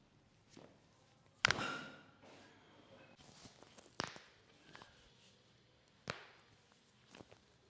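Sharp cracks and knocks from a chiropractic adjustment, three of them: the loudest about one and a half seconds in with a brief ringing tail, and two smaller ones about two seconds apart later on.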